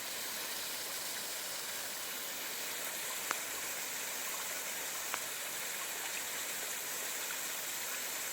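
Water of a small creek running steadily, at the spot where the stream sinks away under the ground. Two faint clicks about three and five seconds in.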